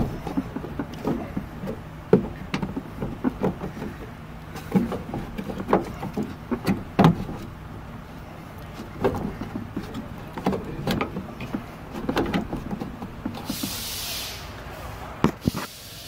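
Irregular clicks, knocks and scrapes of hard plastic being handled: a replacement blend door being worked into place inside a Ford E350's rear HVAC box. A short hiss comes about thirteen seconds in.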